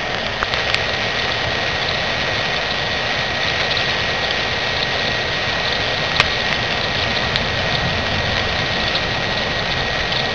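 BioLite CampStove's fan running steadily with a thin high whine over a rushing hiss, and a few sharp pops from the charcoal fire and grilling chicken.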